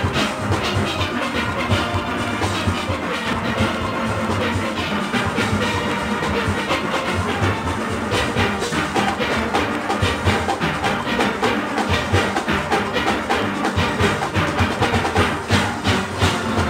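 Steel orchestra playing: massed steelpans ringing out a melody over a driving drum and percussion rhythm section, the beat growing sharper about halfway through.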